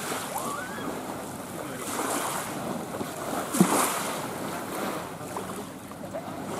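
Small lake waves lapping at the shore, swelling every couple of seconds, with one brief louder splash about three and a half seconds in. Wind buffets the microphone.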